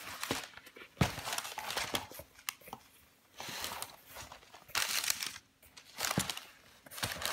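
Protective wrapping rustling and crinkling in several bursts as it is handled and pulled out from inside a calfskin clutch bag, with a few light knocks, the sharpest about a second in.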